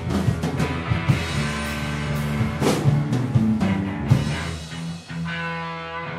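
Live rock band with electric guitar, bass guitar and drum kit playing loudly. About four seconds in the drums stop and held guitar notes ring on.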